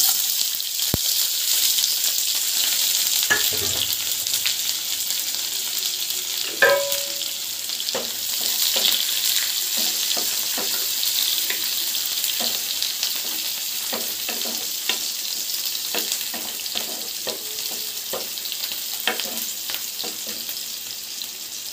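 Sliced shallots hitting hot oil in a non-stick kadai, sizzling at once with a steady high hiss, then stirred with a wooden spatula that knocks and scrapes against the pan again and again. The sizzle eases slowly as the onions fry.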